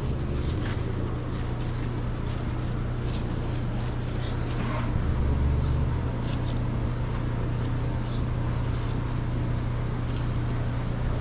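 Steady low machine hum with scattered light clicks and knocks.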